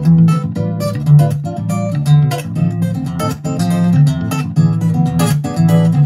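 Strummed acoustic-guitar music over a strong, moving bass line, played through a JBL portable Bluetooth speaker during a sound test.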